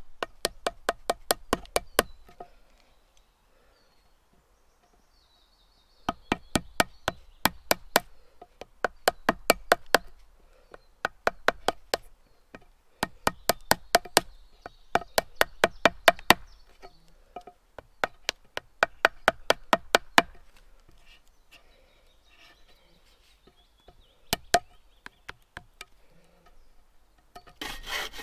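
Rapid sharp knocks, about six a second, in runs of two to four seconds with short pauses and a few seconds of quiet between the first two runs.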